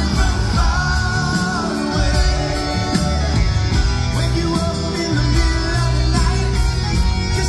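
Live rock band playing, with a lead singer's voice over electric guitars, bass guitar and drums, heard loud through the venue's sound system.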